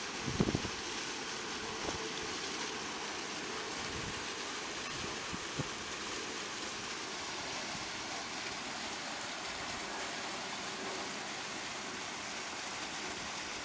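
Steady rushing of river water spilling over a low concrete weir and churning into foam below it. A few brief low thumps, the loudest about half a second in.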